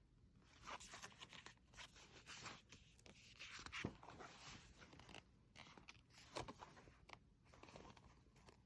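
Faint rustling and light taps of paper as the pages of an album photobook are handled and turned, with a slightly louder tap near the middle.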